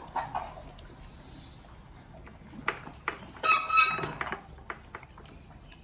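American Bully dog eating from a metal food bowl: wet chewing, licking and small clicks of teeth and food against the bowl. There is a brief squeak about three and a half seconds in.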